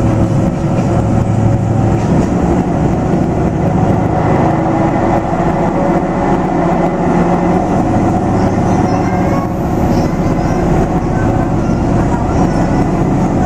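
Hisatsu Orange Railway HSOR-100 diesel railcar running along the line, heard from inside the passenger cabin: a steady engine drone over wheel and rail rumble.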